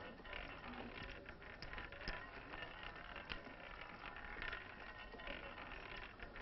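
Faint casino background: a low hiss and murmur, with a few light clicks of gaming chips and plaques being set down on a roulette table.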